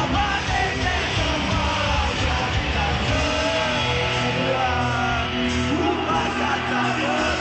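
A rock band playing loud live music with singing.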